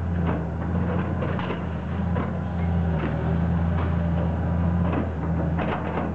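Hitachi hydraulic excavator's diesel engine running steadily under load while its bucket breaks up and drags wooden house-demolition debris, giving irregular cracks, knocks and clatters of splintering timber.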